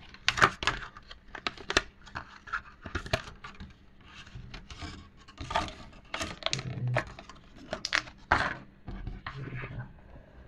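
Cardboard product box being opened and its packaging handled by hand: irregular rustling, tearing and knocking of cardboard and plastic.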